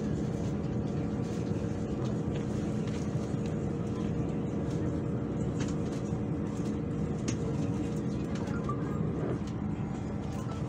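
Steady low hum of a KTM ETS electric train standing at the platform, with a couple of faint held tones in it.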